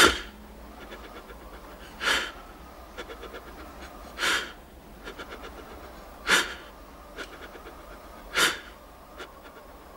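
Heavy, rhythmic breathing: a short, airy breath about every two seconds, with faint rapid ticking between the breaths.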